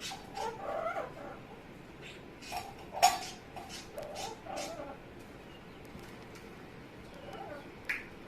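Amazon parrot making a run of short, funny vocal noises in several bursts, with a sharp click about three seconds in.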